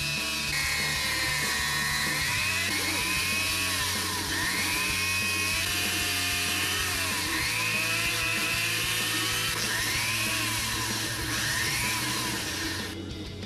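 Small handheld rotary tool (mini drill) spinning a miniature truck wheel blank while a craft-knife blade cuts into it, used as a makeshift lathe. Its high whine dips in pitch and recovers again and again as the blade bites, then the tool stops near the end.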